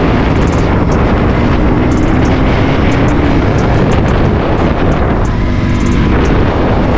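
Motorcycle engine running steadily under way, mixed with heavy wind rush on the microphone.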